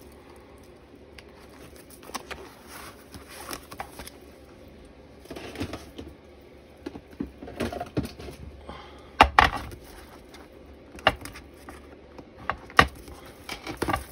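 Clear plastic stamp storage cases being handled, with scattered clacks and knocks and some rustling between them; the loudest clatter comes about nine seconds in.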